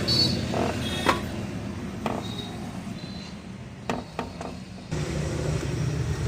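Workshop background: a low motor-vehicle engine rumble, louder about five seconds in, with a few sharp knocks.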